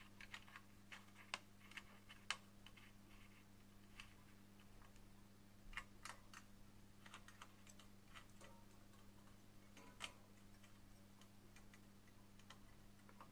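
Faint, scattered light clicks and ticks of a metal screwdriver turning and seating the mounting screws of a CPU cooler's bracket as they are tightened down. A low, steady hum lies underneath.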